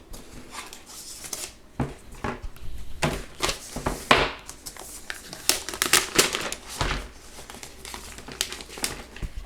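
Packaging being handled and crumpled while the keyboard is unpacked: irregular crinkling and rustling, busiest in the middle stretch.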